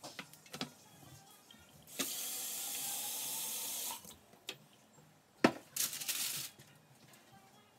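Kitchen mixer tap running into a glass vase for about two seconds, the tone rising slightly as the vase fills, then shut off. A little later comes a single sharp knock and a brief noisy rustle.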